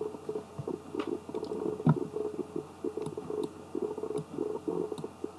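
A few sharp computer mouse clicks over an uneven low background rumble.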